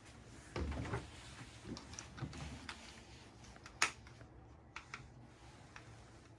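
Quiet handling noise: scattered light clicks and taps, with a brief rustle about half a second in and one sharp click just before the four-second mark.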